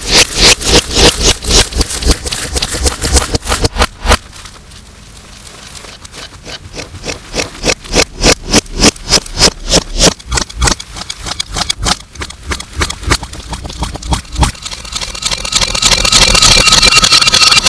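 Slime being squished and worked by hand, heavily distorted, giving rapid runs of sharp wet clicks and pops several times a second. The clicking thins out for a few seconds about four seconds in and returns, and near the end it gives way to a louder, continuous hiss.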